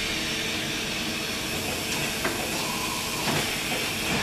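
Quaser HX-504BE horizontal machining center running with a steady hiss of air, during an automatic tool change: a click about two seconds in, then a brief steady whine.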